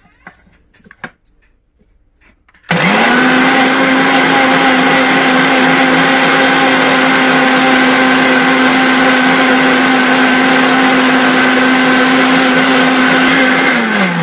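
Bosch mixer grinder with a steel jar, grinding coarse dried henna leaf bits into powder. A few small clicks come first as the jar is handled. About three seconds in the motor starts with a quick rising whine and runs steadily at full speed. Near the end it switches off and winds down with a falling pitch.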